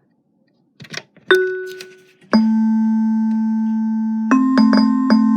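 Electronic keyboard being played: a few faint clicks, a short fading note, then a long held note that barely fades, followed by several quick notes near the end.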